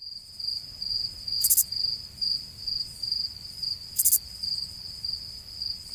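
Crickets chirping: a steady, high, pulsing trill, with a brief buzzier chirp about every two and a half to three seconds.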